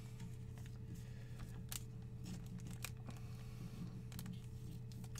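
A trading card being slid into a clear plastic sleeve by gloved hands: soft crinkling of plastic with a few sharp little clicks, twice standing out, about a second and three quarters and about three seconds in. A steady low electrical hum runs underneath.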